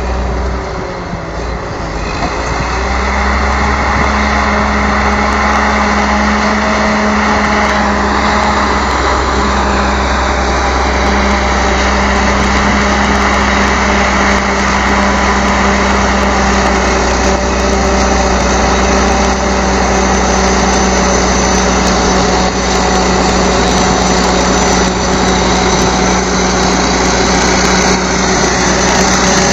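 Caterpillar D8H bulldozer's diesel engine running steadily. It picks up a little about two seconds in and holds an even pitch after that.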